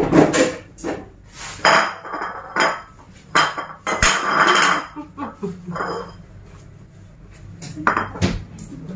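Bowls and plates clinking and clattering on a tiled floor, with a spoon knocking against dishware, in a series of separate knocks and clinks.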